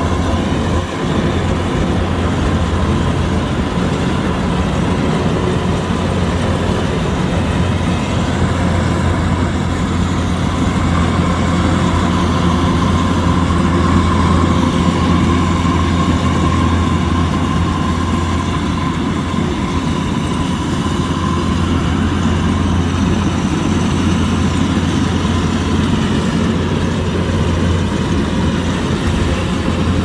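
Kubota DC-105X rice combine harvester running steadily under load, its diesel engine droning with a steady high whine from the working machinery.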